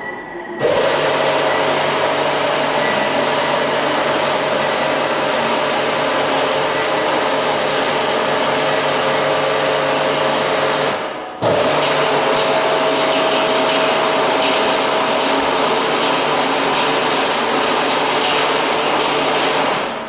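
Electric gear drive of an OTR tire repair stand running with a steady whine as it moves its carriage carrying a large tire. It runs for about ten seconds, stops for a moment, starts again and runs for about another eight seconds, which fits the carriage being raised and then lowered.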